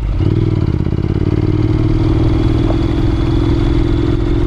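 Honda NC700X motorcycle's parallel-twin engine running under way at a steady speed; its note picks up just after the start, then holds even.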